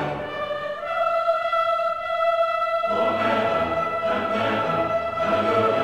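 Orchestral background music: long held high notes, with a fuller, pulsing lower accompaniment joining about three seconds in.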